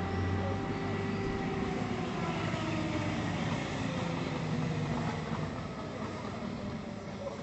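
Engine noise from a passing motor vehicle, a steady hum with tones that fall slowly in pitch as it goes by; another rising tone begins near the end.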